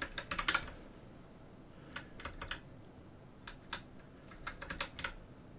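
Typing on a computer keyboard: short runs of keystroke clicks with brief pauses between them.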